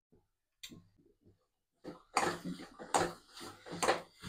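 Steel spoon stirring and scraping a thick, ghee-laden halwa mixture in a stainless steel kadai. Faint scrapes at first, then from about two seconds in a run of louder, rapid scrapes and wet squelches.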